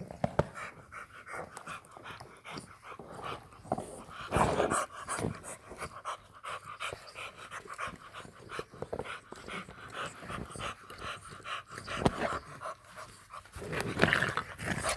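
English bulldog puppies panting as they gnaw on hard chew bones, with a run of clicks and knocks from teeth and bones, a few of them sharper and louder.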